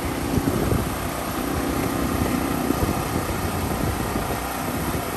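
A food truck's onboard engine running steadily with an even hum.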